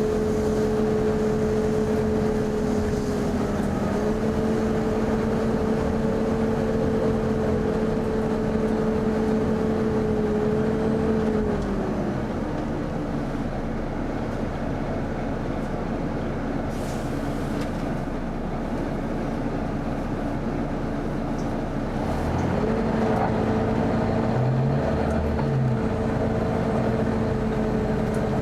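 Volvo B9TL bus's hydraulic-style engine cooling fan giving a loud, steady, vacuum-cleaner-like whine over the idling engine. About twelve seconds in the whine winds down and stops, leaving the engine running alone, then the fan cuts back in about ten seconds later and holds steady again.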